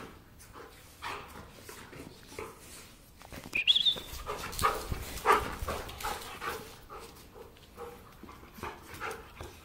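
Two giant schnauzers, an adult and a puppy, play-fighting: irregular short dog noises and scuffling, with a high rising squeal a little over a third of the way in.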